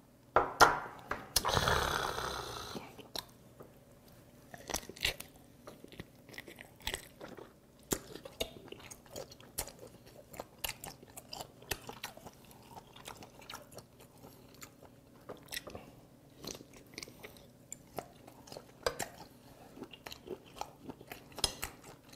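Close-up chewing of steamed cuttlefish: wet mouth smacks and clicks throughout, with a longer, louder burst of noise about a second and a half in as he bites into a piece.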